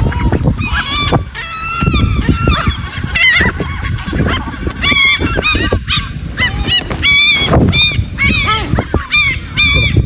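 A flock of birds calling over one another in short, arched squawks, many a second, while being hand-fed, over a steady low rumble.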